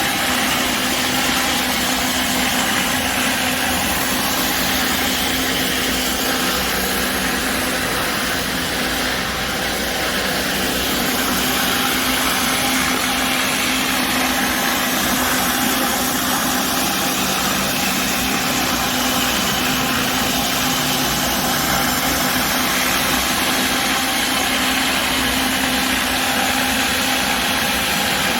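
Pressure washer engine running steadily at a constant speed, with a steady hiss over it.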